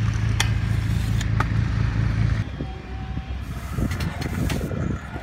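A stunt scooter at a skatepark, over a steady low rumble that cuts off about two and a half seconds in. The scooter gives a sharp clack twice in the first part, then its wheels roll rough over the concrete near the end.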